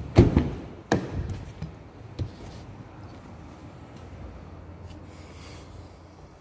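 An Audi A4's rear door being opened: a sharp latch click and clunk, then two lighter knocks within the first couple of seconds. After that only faint rustling from handling.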